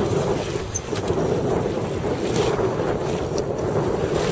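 Wind buffeting the microphone over choppy open water, with water lapping and a steady low hum underneath.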